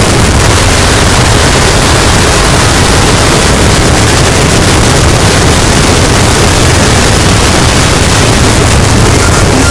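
Harsh noise wall: a loud, dense, unchanging mass of harsh static with a heavy low rumble underneath, and no rhythm or melody.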